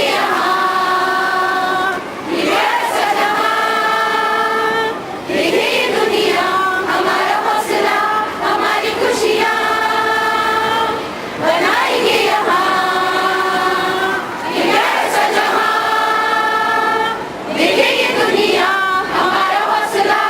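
A choir singing long held notes in phrases of about three seconds, with short breaks between the phrases.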